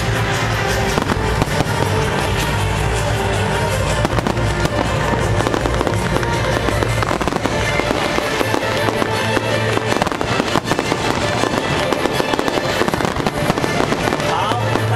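Fireworks display: a dense, continuous crackle of bursts and pops, with music playing underneath.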